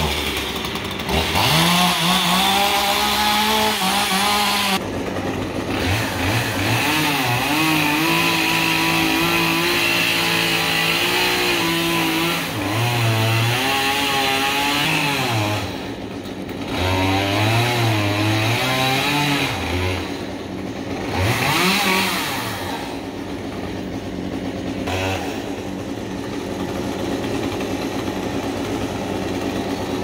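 Gas chainsaw running and cutting at the crown of a palm tree, its engine revving up and down again and again as the throttle is worked and the chain bites. Over the last few seconds it settles into a quieter, steadier run.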